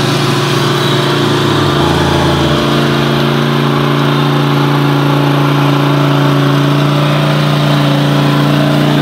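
ATV engine running steadily at close range, with a brief deeper low note about two seconds in.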